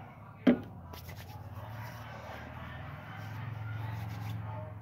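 A sharp knock about half a second in, then a soft, steady rustle of hands rubbing together, slick with hair oil, over a low hum.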